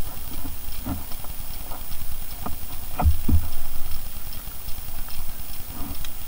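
A few scattered dull knocks on the boat, the loudest two low thumps close together about three seconds in, over a steady low rumble.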